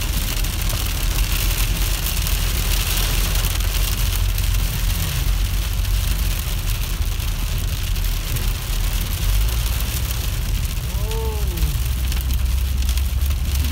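Hail striking the roof and windshield of a moving car, heard from inside the cabin as a dense stream of fine taps over the low rumble of the car on the road.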